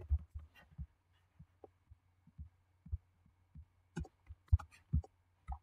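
Faint computer mouse clicks and keyboard key presses, heard mostly as soft, irregular low thumps, with a few sharper clicks about four to five seconds in.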